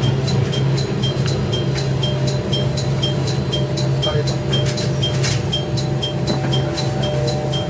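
Diesel railcar running with a steady low engine drone, while a short high ding repeats evenly about twice a second.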